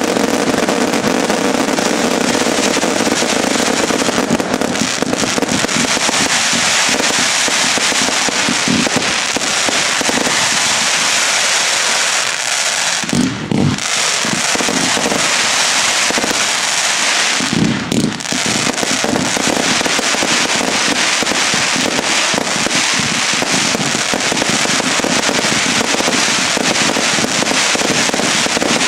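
A fireworks barrage firing without a break: dense crackling and rapid bangs from fountains and aerial bursts, with two brief dips about 13 and 18 seconds in.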